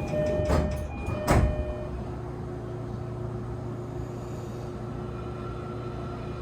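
Door chime of a JR East E233 series 0 commuter train, the distinctive chime of set T71, ringing in steady tones that stop about two seconds in. The sliding doors thump twice, about half a second and a second and a half in, the second thump loudest. After that the stopped train gives a steady electrical hum.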